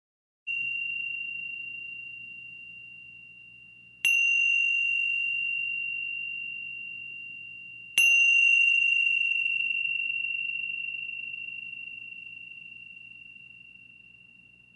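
A small high-pitched bell struck three times, about four seconds apart, each strike ringing on and slowly fading, the second and third louder than the first: the closing bell of a guided meditation.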